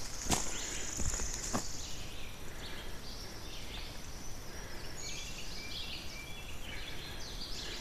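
Three footsteps on a dirt forest trail in the first second and a half, under a steady high buzz that stops about two seconds in. After that, scattered high chirping calls from wildlife in the woods.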